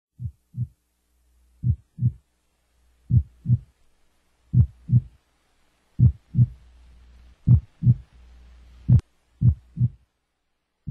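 Slow heartbeat, likely a sound effect: paired lub-dub thumps repeating about once every second and a half, with a faint low hum between the beats.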